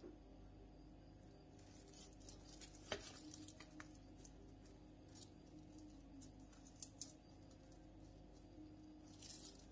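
Near silence over a steady low hum, with faint rustles and light taps of hands in plastic gloves handling soft bread rolls on a metal baking tray; one sharper tick about three seconds in and two more near seven seconds.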